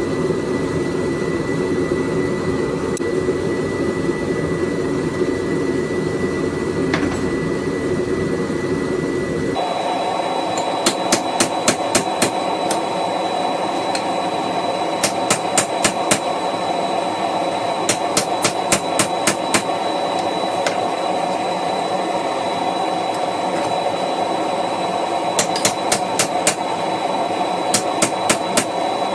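A hammer strikes a hot cut chisel driven into a railroad spike, in quick groups of four to six sharp metal blows with pauses between. The groups start after a steady rushing noise that fills the first ten seconds and stops suddenly.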